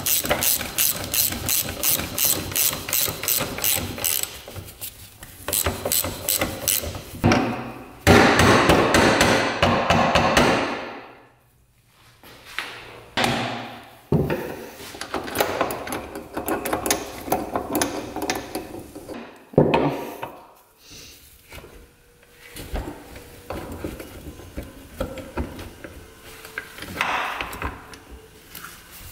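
A ratchet wrench clicking in a quick, even run as it turns the forcing screw of a crankcase splitter on a Honda Z50 engine. After that come irregular knocks and metal clatter as the case halves are worked apart.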